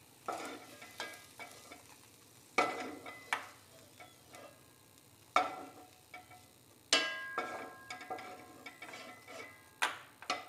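Wooden spatula knocking and scraping against a non-stick pot and a small steel bowl as fried raisins are scooped out of hot ghee: several scattered knocks, one with a short metallic ring about seven seconds in.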